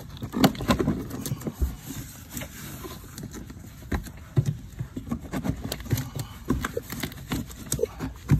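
Club Car Precedent floor mat being worked into place around the pedal assembly by hand: irregular knocks, taps and rubbing as it is pushed and tucked in, with the sharpest knocks just after the start and near the end.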